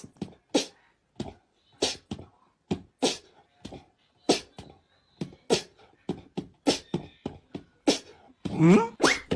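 A sparse, dry percussion beat with no melody, one hit about every 0.6 seconds with a few extra hits in between. A rising sweep in pitch comes shortly before the end.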